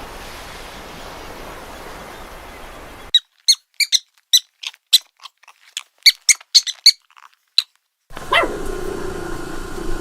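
A run of about fifteen short, high-pitched squeaks from a small animal, coming in quick irregular bunches, after a few seconds of steady background hiss. Near the end a different animal call starts, falling steeply in pitch and then holding a lower note.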